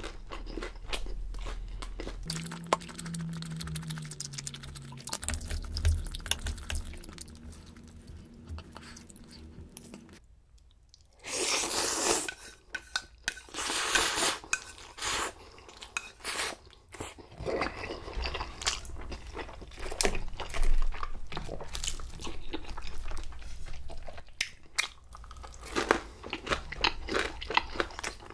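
Close-miked chewing of a mouthful of food with wet, crunchy mouth sounds; about eleven seconds in, a run of loud slurps as black-bean-sauce noodles (jjajangmyeon) are sucked in from a ladle, followed by more chewing.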